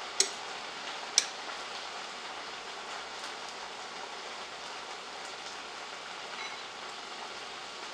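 Steady sizzling hiss of sauce cooking in a pan on the stove, with two sharp clicks near the start.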